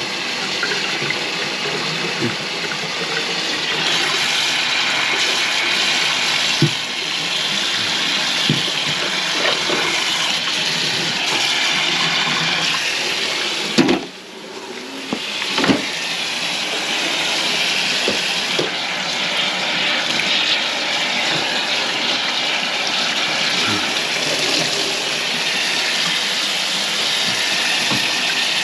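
Kitchen faucet running steadily into a stainless steel sink, the water draining freely through a drain just cleared of a clog. The flow drops away briefly about halfway through, with a couple of knocks, then runs on.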